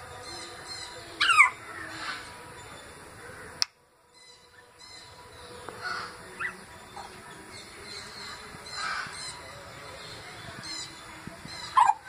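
African grey parrot calling in imitation of other birds. A loud, sharp call slides steeply downward about a second in, softer calls follow at intervals, and another loud call comes near the end. Faint high chirping runs underneath, and the sound drops out briefly about four seconds in.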